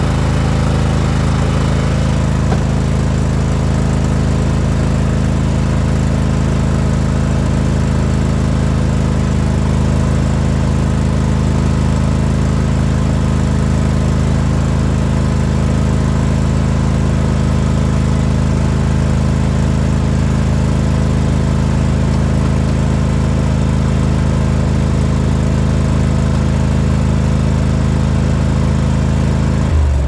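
John Deere L130 Automatic lawn tractor's Kohler V-twin engine running steadily and evenly at a constant speed, in good running order. At the very end it is switched off and its pitch falls as it winds down.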